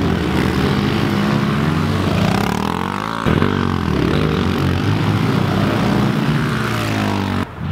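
Several small four-stroke 110 cc pit bikes (Honda, Kawasaki and Yamaha) revving through a dirt berm turn one after another, their engine notes overlapping and rising and falling as they pass. The sound drops away suddenly near the end.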